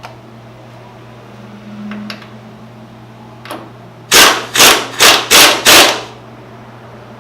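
Five quick hammer blows on metal, about three a second, starting about four seconds in, after a couple of lighter tool clicks.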